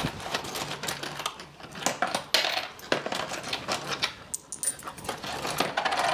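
Coins clinking and jingling against each other and the cardboard as a hand digs them out of a cardboard honor charity box, many short irregular clicks.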